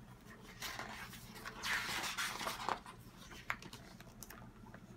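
A picture book's paper page being turned by hand: a soft rustle lasting about two seconds, with a few light clicks.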